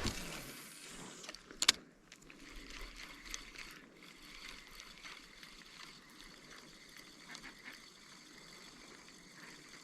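Spinning fishing reel being wound in on a retrieve: a faint steady whir with small clicks, and one sharp knock about two seconds in.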